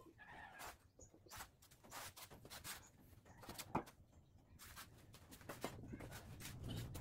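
Faint clicks and light knocks of a steel trike frame and rear axle being handled, with one sharper knock about four seconds in. Sandal footsteps on a tiled floor near the end.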